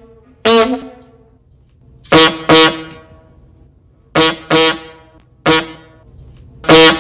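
Novelty toy horn honking in short blasts: one honk, then two quick pairs, another single and a slightly longer honk near the end, each ringing briefly after.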